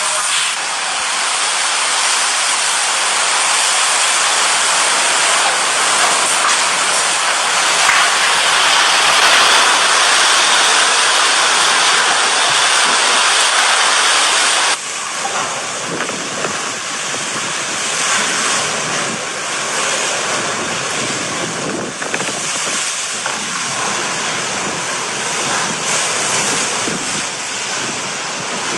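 Hurricane wind blowing hard and buffeting the microphone as a loud, continuous rushing noise. About halfway through it drops suddenly to a slightly lower level and goes on in uneven gusts.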